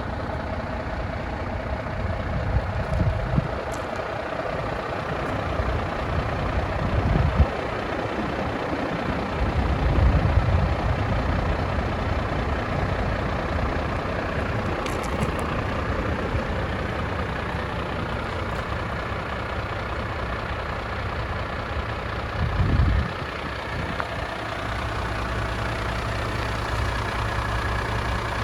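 Heavy truck diesel engine idling steadily: the Mercedes-Benz Antos 2530's 300 bhp Euro 6 engine. A few brief deeper surges come in the first ten seconds and one more about three-quarters of the way through.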